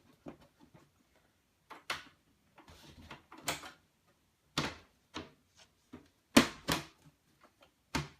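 A series of sharp knocks and clicks, about seven spread over several seconds with the loudest pair a little past the middle, from the aluminium side panel of a Power Mac G5 being fitted and latched back onto the case.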